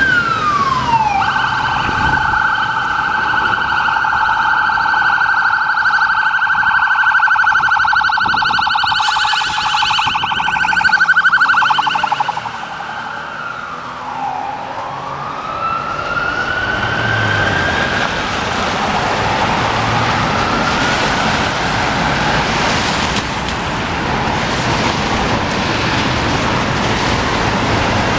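Emergency vehicle siren: a steady, blaring two-pitch tone for about the first twelve seconds, then slow rising-and-falling wails that fade into steady street noise.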